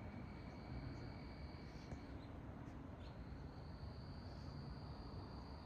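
Crickets trilling steadily on one high pitch, faint, breaking off for about a second midway and then resuming, over a low steady rumble of outdoor noise.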